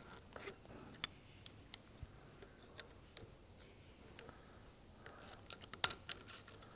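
Scattered light metal clicks and taps of pliers and a small part being fitted on the splined centre shaft of a tractor's front planetary hub, with a quick cluster of sharper clicks about five and a half seconds in.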